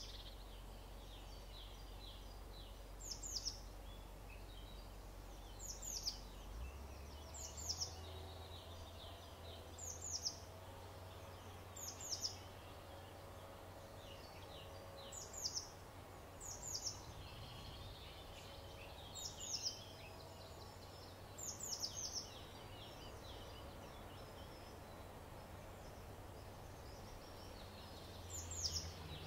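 Field recording of wild songbirds: short, high notes that slide downward, often in pairs, repeated every few seconds, with some fainter scratchy twittering, over a faint steady low hum.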